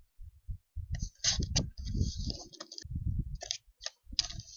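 Clicks and rustling close to the microphone: a few soft thumps, then two spells of dense clicking with hiss.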